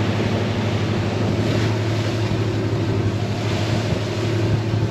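A boat's engine running steadily under way, a low even hum, with wind and rushing water around the hull.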